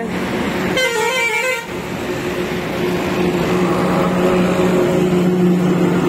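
Busy highway traffic of trucks and motorbikes, with a vehicle horn honking briefly about a second in. A steady low drone of engines follows.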